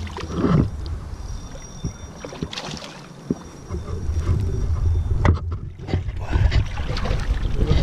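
A hooked mirror carp of about 2–3 kg splashing and thrashing at the water's surface as it is played in to the bank, with low rumbling and scattered knocks from handling.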